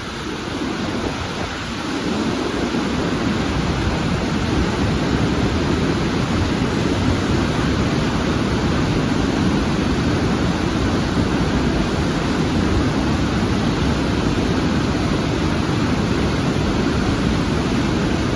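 Steady rushing of a large waterfall, water pouring down continuously; it grows a little louder about two seconds in.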